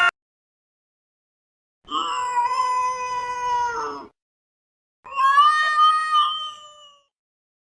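Domestic cat giving two long, drawn-out yowls of about two seconds each, held at a fairly steady pitch, the second starting about a second after the first ends and trailing off at its end.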